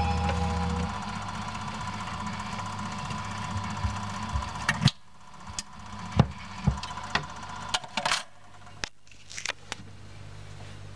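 Vintage record player at the end of a 45 rpm single: the last of the music dies away in the first second, leaving the stylus hissing in the groove over a low hum. About five seconds in the tonearm is lifted by hand, and a series of sharp clicks and knocks follows from handling the arm while the hum goes on.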